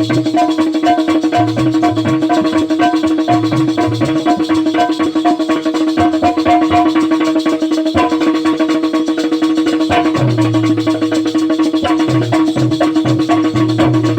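Instrumental passage of Bundeli Rai folk music: a fast, dense drum rhythm over a steady held drone note, with recurring low bass notes.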